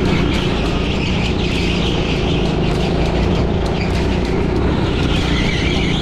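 Go-kart engine running steadily at speed, heard from the driver's seat, with a hiss of tyre and track noise over it.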